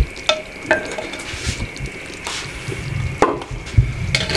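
A spoon clinking and knocking against a clay cooking pot and a plate as pieces of cooked mutton are lifted out, with several irregularly spaced knocks.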